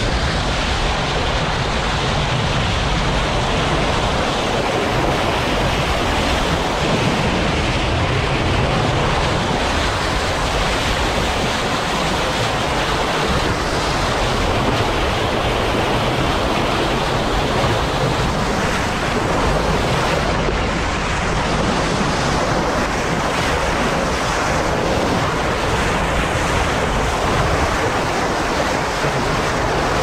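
Steady rush of a boat's bow wave breaking and hissing along the hull, with wind buffeting the microphone.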